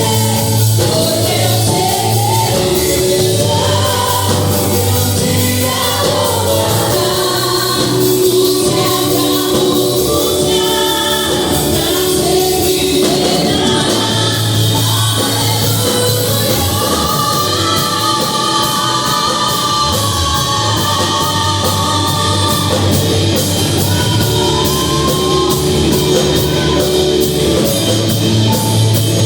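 Music with a sung vocal line over a steady bass and band accompaniment.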